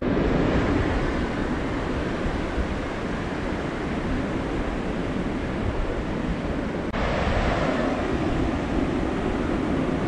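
Atlantic surf breaking and washing up a sandy beach, a steady rush of water, with wind buffeting the microphone. The sound shifts abruptly about seven seconds in.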